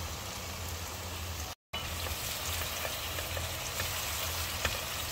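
Chilli paste sauce with soy sauce sizzling and bubbling in a granite-coated pan, with scattered crackles. After a brief gap about a second and a half in, a spatula stirs through the frying sauce.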